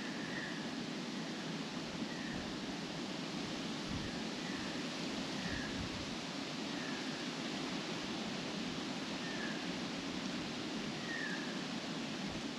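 Wind blowing through tree leaves and grass, a steady rustling hiss, with faint short high chirps repeating about once a second.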